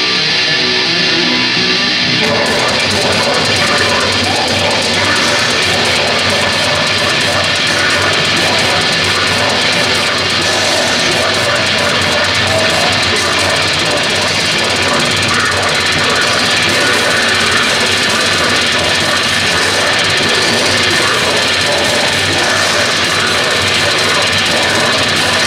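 Technical death metal band playing live: distorted electric guitars, bass and drum kit. A guitar is heard with little behind it at first, and the full band comes in about two seconds in.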